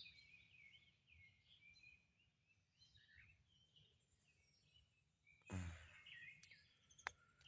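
Faint morning birdsong: several birds chirping and calling over a quiet background. About five and a half seconds in there is a brief, louder low sound, and near the end a single click.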